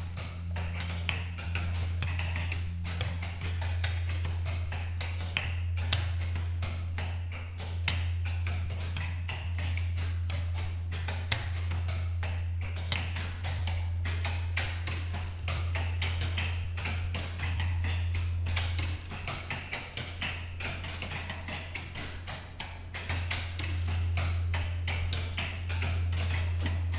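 Sound-installation audio: a steady low drone under dense, irregular clicking and tapping, the mix of the installation's sound score and its solenoids striking.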